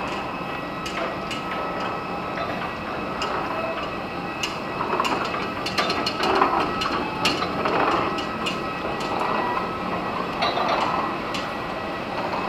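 Metal airport baggage cart rattling and clanking as it passes close by, loudest about five to eight seconds in, over a steady background hum.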